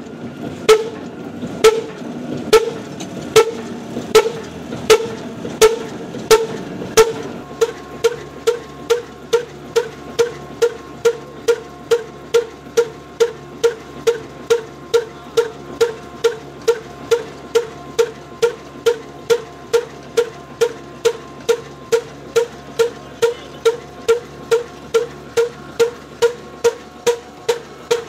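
Old black diesel flour-mill engine firing through an exhaust stack capped with an inverted metal glass, each exhaust beat a sharp, loud bang. The beats come about once a second at first, then about two a second, steady, after roughly seven seconds.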